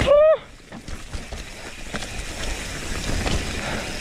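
Mountain bike rolling over a trail: steady tyre, wind and rattling noise with small knocks. Right at the start, one short, loud pitched yelp that rises slightly and then drops away.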